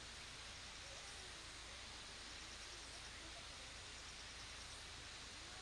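Quiet, steady outdoor ambience with faint, evenly repeating high chirps.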